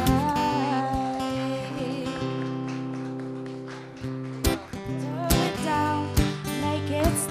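Upbeat show theme music led by strummed guitar, with a singing voice and a few sharp percussive hits in the second half.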